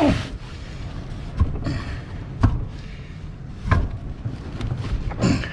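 Knocks and clunks of heavy iron dry steering clutch parts from an Allis-Chalmers HD6 dozer being shifted and worked apart on a wooden bench, about four separate knocks roughly a second apart.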